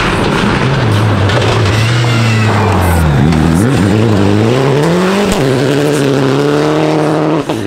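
Citroën DS3 rally car's engine at full power through a gravel bend. The revs dip and waver about three seconds in, climb again, then drop sharply at a gear change just after five seconds, over the hiss of tyres and gravel.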